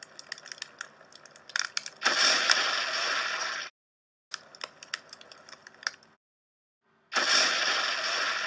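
Crackling sound effects: scattered sharp crackles and clicks, with two loud hissing bursts of about a second and a half each, the first about two seconds in and the second near the end.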